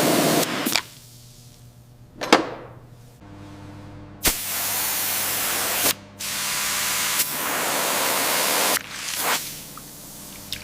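A pressurised spray hissing in long bursts of a second or more, each one opening with a sharp click, with a faint low hum in the gaps between bursts.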